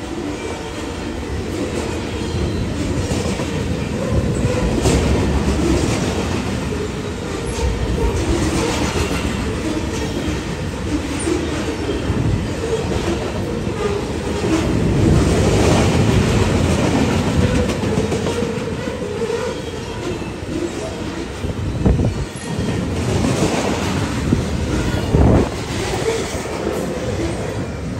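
Freight cars of a CSX train rolling past close by: a steady rumble of steel wheels on rail with clattering over the rail joints, and a few sharp clanks in the last third.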